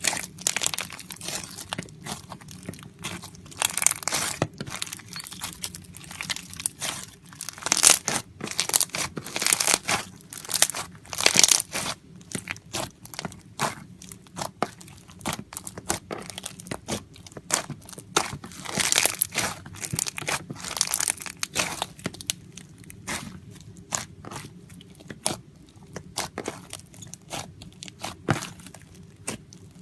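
Slime being squeezed and worked by hand: dense, irregular crackling and popping clicks that come in clusters.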